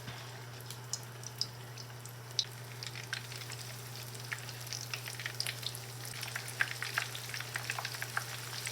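Flour-coated chicken pieces frying in hot canola oil in a pan: a steady sizzle with frequent sharp crackles and pops that grow busier after about three seconds, over a steady low hum.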